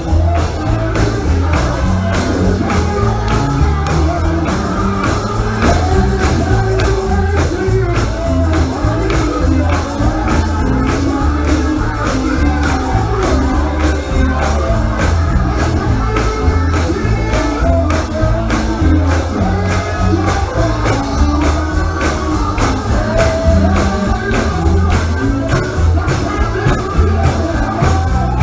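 Live gospel music: a band with heavy bass and drums keeping a steady, fast beat, and a voice singing over it, echoing in a large hall.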